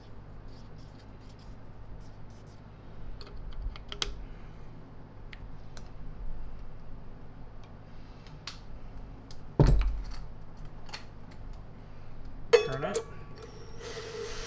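Small clicks and taps of tools and vacuum motor parts being handled, with a heavier knock about ten seconds in. Right at the end a cordless drill starts whirring, spinning the vacuum motor's fan to check whether it rubs.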